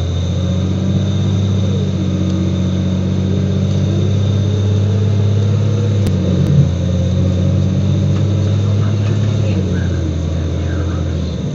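Transit bus engine running at a steady speed, a deep even drone that eases off near the end, with a brief knock a little past halfway.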